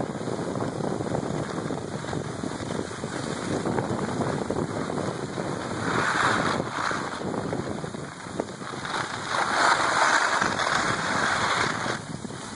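Skis sliding and scraping over snow, with wind buffeting the microphone. There are two louder hissing scrapes, one about six seconds in and a longer one from about nine and a half seconds until near the end.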